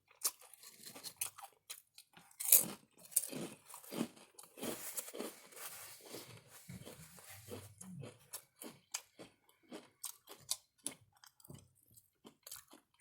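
A person eating close to the microphone: irregular crunchy bites and chewing, with loud crunches about two and a half seconds in, and wet mouth smacks.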